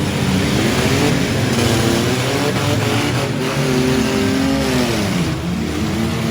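Several six-cylinder demolition derby car engines revving, their pitch rising and falling as the cars accelerate and back off.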